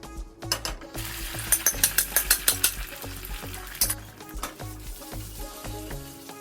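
Food sizzling in hot oil in a pan while it is stirred, with a quick run of sharp utensil clicks and scrapes against the pan in the first half. Background music plays throughout.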